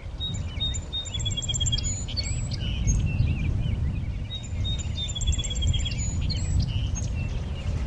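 Birds singing: a phrase of short whistled chirps and a quick trill, heard twice about four seconds apart, over a steady low rumble.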